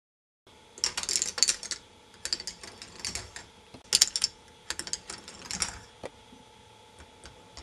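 Balls running through a K'nex ball machine: irregular bursts of rapid clicking and clattering as they roll and drop along the plastic track, over a faint steady hum. The sound starts abruptly about half a second in.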